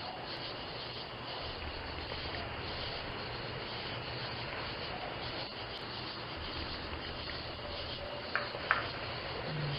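Steady hissing background noise picked up by a video doorbell's microphone, with two faint clicks near the end.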